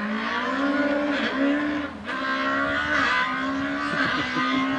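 Race car engine accelerating up the hill-climb course, held high in each gear and dropping in pitch at upshifts, most clearly about two seconds in.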